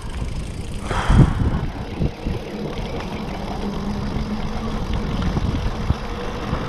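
Mountain bike rolling on a concrete road: a steady drone from the tyres with wind rush on the microphone, and a thump from the bike about a second in.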